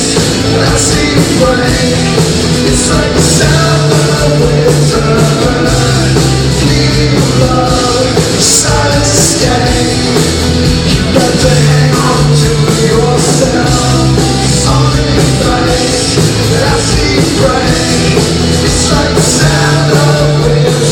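Live rock band playing loud and steady, with distorted guitars, bass, drums and a male lead vocal singing.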